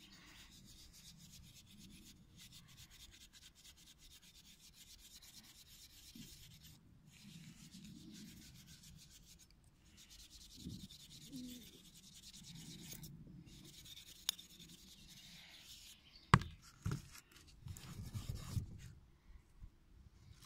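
Fine steel wool scrubbing a tarnished silver spoon with a metal-stripping paste: a faint, steady rubbing. Near the end comes one sharp knock and a few softer knocks as the spoon is handled and laid on cardboard.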